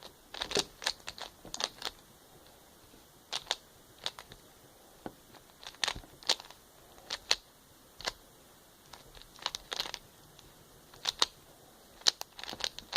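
Rubik's cube layers being turned by hand: sharp plastic clicks and clacks in short irregular clusters, with pauses between moves.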